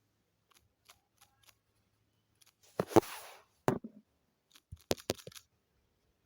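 Clicks and taps from an itel A16 Android phone being touched and handled. There are faint single clicks at first, a louder rattly cluster about three seconds in, and a quick run of four or five clicks near the end.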